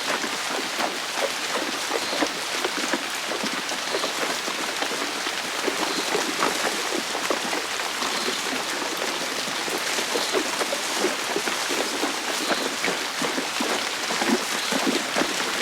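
Steady heavy rain pattering on a hard surface, a dense, even spatter of drops, made as foley for a rainstorm scene.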